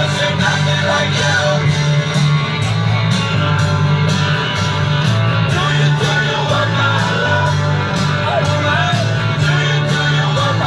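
Rock song with a sung vocal, guitar and a steady drum beat.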